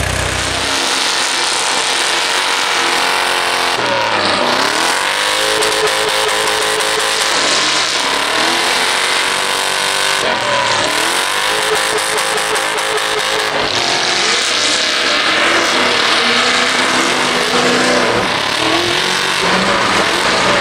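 Several small-tire-class off-road race rigs running hard as they push through deep snow, their engines revving, dropping and climbing again in pitch around four and ten seconds in.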